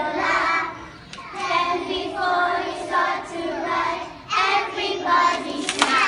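Children singing together as a group, in phrases of about a second each.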